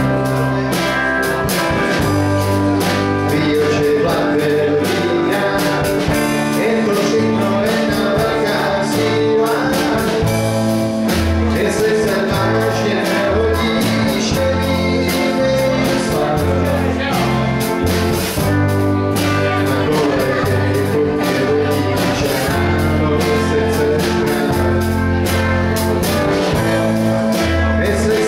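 Live big-beat rock band playing electric guitars and drums, with a male voice singing over them.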